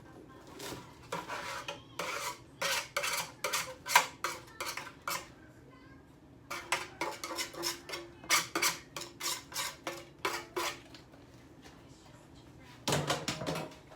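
Dishes and containers clinking and clattering as they are handled. There are two runs of quick sharp clinks with a short pause between them, then one louder, fuller clatter near the end.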